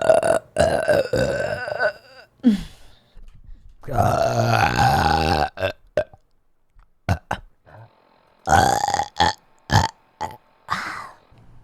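A person burping repeatedly, a string of about six fairly high-pitched, voiced burps. The longest are drawn out for well over a second, the later ones are shorter, with brief mouth clicks in between.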